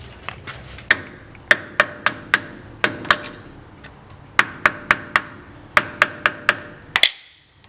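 Hammer striking a screwdriver to bend back the locking tabs of the lock washer on a hub nut: repeated sharp metallic taps in irregular clusters, each with a brief ring.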